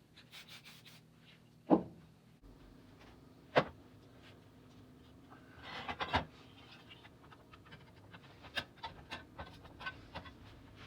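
Workshop handling sounds: three sharp knocks a couple of seconds apart, a short scraping rub just before the third, then a quick run of light taps and clicks near the end.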